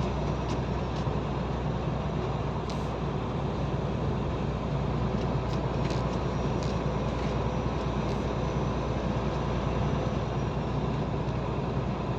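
Steady engine drone and road noise of a heavy truck heard inside its cab while driving on a snow-covered winter highway, with a few faint ticks.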